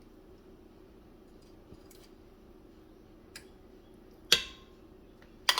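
Two sharp clinks of hard kitchenware knocking together over a faint steady hum. The first, about four seconds in, rings briefly; the second comes near the end.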